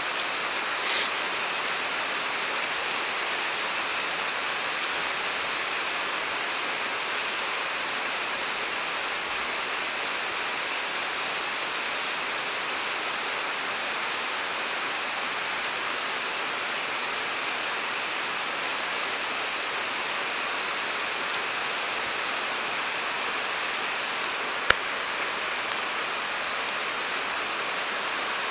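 Heavy rain pouring steadily onto a street and pavement, a dense even hiss. A brief sharp sound about a second in and a single click a few seconds before the end.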